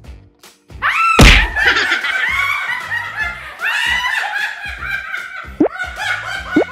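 Two women laughing loudly and excitedly over background music with a steady beat, after a sudden thump about a second in.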